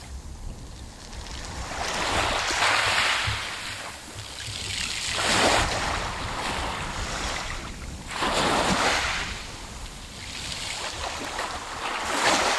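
Small sea waves lapping on a pebble beach: four swells of wash about three seconds apart, each rising and then falling away.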